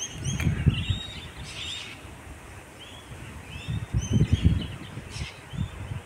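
Strong wind buffeting the microphone in gusts, strongest about half a second in and again around four seconds, with birds chirping briefly and repeatedly in the trees throughout.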